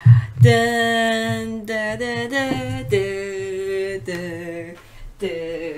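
Music with singing: a voice holding long notes that step up and down in pitch, with short breaks between phrases.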